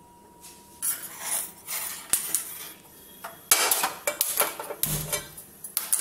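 Metal utensils and dishes clinking and clattering in a run of short knocks and rattles, sparse at first and busier over the last two and a half seconds.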